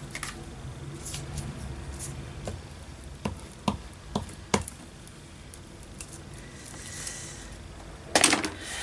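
A few light taps and clicks of craft materials being handled on a tabletop while glue is applied, five or so spread through the middle, then a short louder noisy burst near the end.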